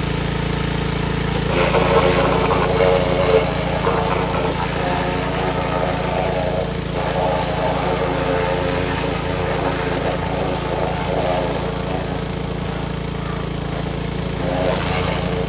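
Pressure washer running steadily with its spray hitting a bare engine block. The spray noise swells for a couple of seconds about two seconds in.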